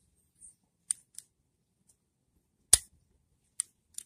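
Sharp plastic clicks from a plug-in outlet tester being handled: one loud click about two and a half seconds in, with a few lighter ticks before and after it.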